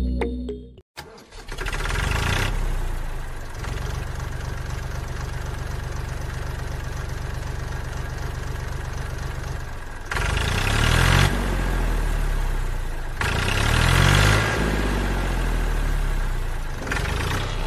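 Diesel tractor engine starting about a second in and running at a steady idle with an even knocking beat, then revving up and down twice in the second half as the tractor pulls away.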